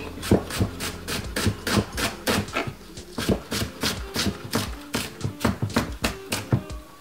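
Chef's knife chopping a white onion on a wooden chopping board: a steady run of sharp knocks, about three to four a second.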